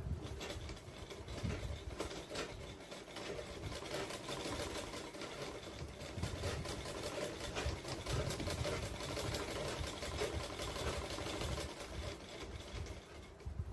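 Black domestic sewing machine running steadily and stitching in a fast, even rhythm as fabric is fed under the needle. It stops shortly before the end.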